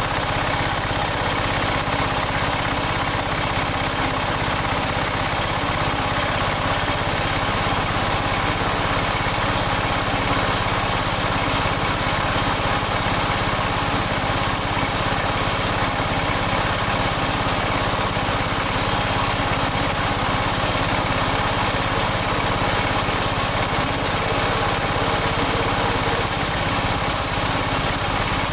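Toro Snow Commander snowblower engines running steadily, warming up after a cold start in freezing weather.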